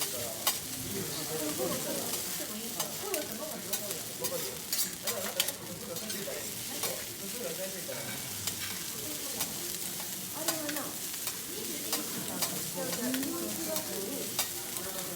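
Food sizzling on a teppanyaki griddle: a steady frying hiss with sharp clicks now and then.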